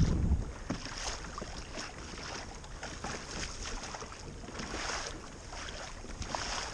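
Wind gusting on the microphone, strongest at the start, over choppy water splashing and lapping against a plastic kayak's hull, with a few light clicks and knocks.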